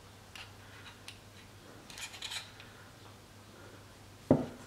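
Mitutoyo vernier caliper being handled with a small machined metal block: a few light metallic clicks, a short clatter of ticks about two seconds in, then a single sharp knock near the end, the loudest sound.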